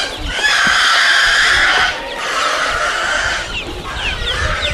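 Crated young chickens calling: two loud, drawn-out calls of about a second and a half each, then a rush of short, high, falling peeps from chicks near the end.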